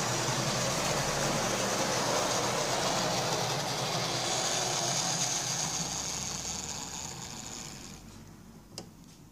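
OO-gauge model locomotive (a Mainline BR Class 56) running on the layout: a steady whir of its motor and gears with the rumble of wheels on the track, fading away over the last few seconds as it slows to a stop. A single small click comes near the end.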